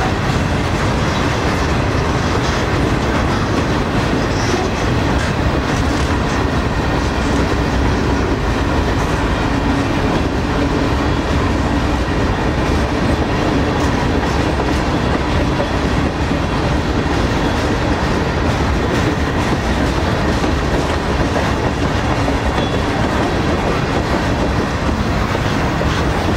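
Freight cars of a long mixed freight train rolling past, a steady rumble of steel wheels on the rails with a continuous clickety-clack.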